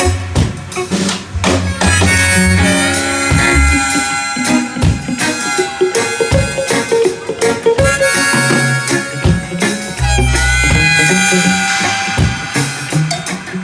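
Reggae band playing an instrumental break: a deep bass line and drum kit under a sustained, bending lead melody, with no vocals.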